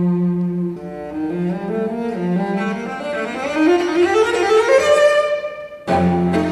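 Bowed strings, led by cello, hold a low note, then climb step by step in a rising line of notes over about four seconds. Near the end the music breaks off and the strings come back in with a sudden loud attack.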